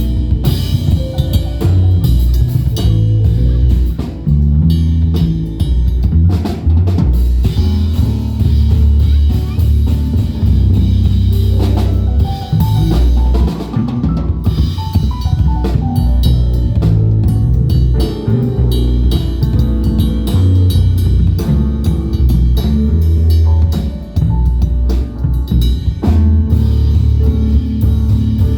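Music with a drum kit, bass drum and snare hits over a heavy bass line, played through a sound system during a sound check.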